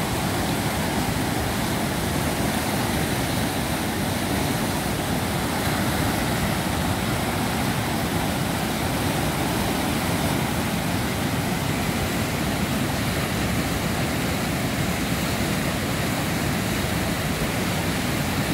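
River in flood pouring over a rocky weir and fish pass: a steady, deep rush of churning, muddy whitewater.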